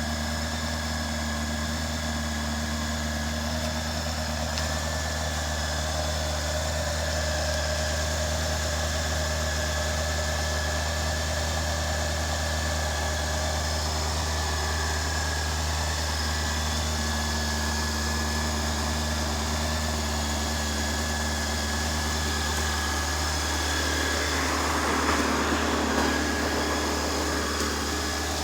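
Honda CBR600F Sport's inline-four engine idling steadily through its stock exhaust, with a brief louder patch of noise near the end.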